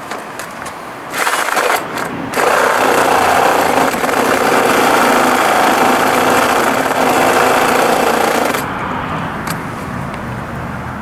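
Electric drill with a 1-inch bit, run in a couple of short bursts and then steadily for about six seconds as it grinds away the edge of a hole in a plastic scooter body panel, widening the hole.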